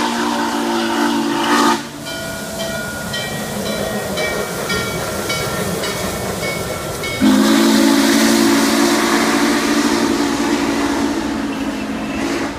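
Norfolk & Western Class J 611 steam locomotive passing. Its steam whistle chord sounds until nearly two seconds in, then its bell rings steadily, about one and a half strokes a second. About seven seconds in the whistle blows again, loudest of all, and is held for about five seconds as the engine and its train roll by.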